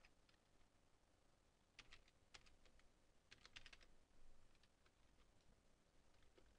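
Faint computer keyboard typing: a short run of about eight quick keystrokes in two bursts, entering a password word.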